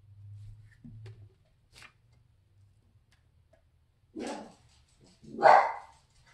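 A dog barking twice, about four seconds in and again a second later, the second bark louder.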